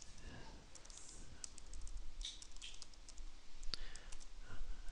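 Computer keyboard being typed on: a run of separate keystroke clicks at an uneven pace, fairly faint.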